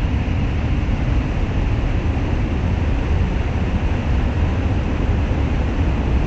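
Heavy rain falling steadily: a dense, even hiss with a deep rumble underneath.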